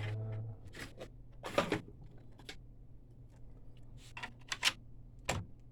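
Scattered light clicks and brief clatters of small plastic printer parts being handled, several in quick succession near the end.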